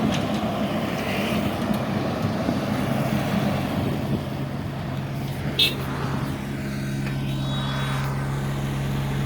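A heavy vehicle engine running, rough at first and settling into a steady hum about two-thirds of the way in, with one short sharp click a little past halfway.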